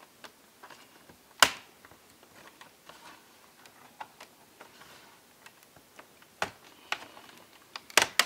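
Sony Vaio F-series laptop keyboard being pried up by hand from its plastic frame: sharp plastic clicks and snaps as it comes loose, the loudest about a second and a half in and several more near the end, with faint ticks of handling in between.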